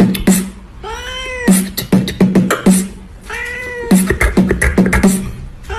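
A song built on a sampled cat meow: the same rising-then-falling meow comes back about every two and a half seconds, each one followed by a quick run of beatbox-style beats.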